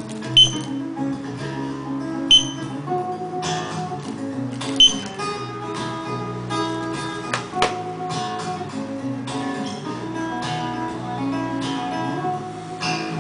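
Strummed acoustic guitar music, with three short, sharp high-pitched beeps in the first five seconds.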